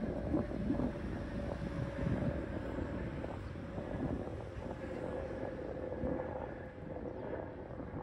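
Wind buffeting the microphone, with a steady distant engine hum underneath.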